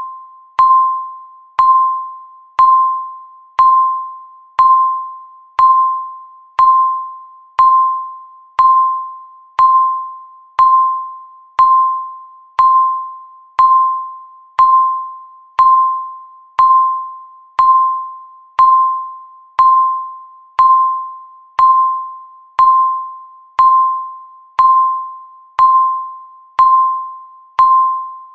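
Countdown timer beep: a single chime-like tone struck once every second, each starting sharply and fading away before the next.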